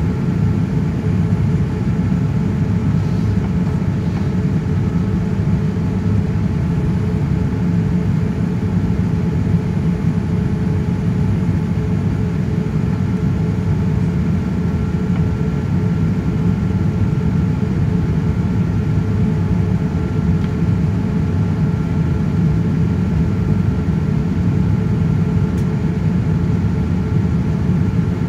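Steady cabin rumble of a Boeing 787-9 Dreamliner with its jet engines running, heard from inside the cabin. A deep, even roar carries a few faint steady whining tones over it.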